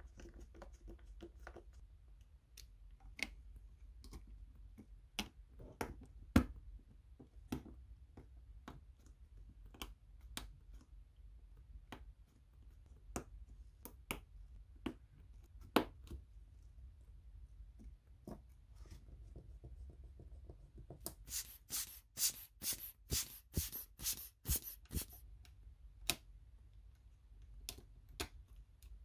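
Small hand tools working inside an opened iPhone XS Max: scattered light clicks and taps of a precision screwdriver and a spudger on tiny screws, metal brackets and flex connectors, with a quick run of sharper clicks about three-quarters of the way through.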